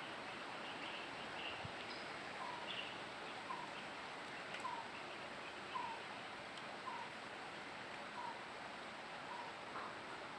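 A bird repeating a short, slightly falling call about once a second over a steady hiss, with a few fainter, higher chirps.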